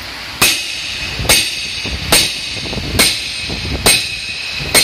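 Hammer blows on a driver set atop a cylinder liner, driving the sleeve down into a bore of a Toyota 22R four-cylinder engine block. There are six sharp metallic strikes, a little under one a second, each with a brief ring.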